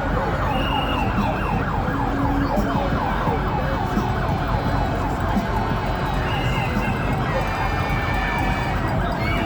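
Emergency-vehicle siren in a fast yelp, its pitch sweeping up and down several times a second, over dense street noise, with a few short steady horn-like tones.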